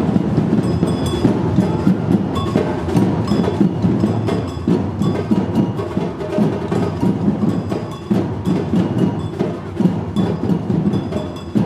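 A percussion ensemble of drums playing a steady, fast rhythm together, deep drum strokes with a sharper clacking beat over them.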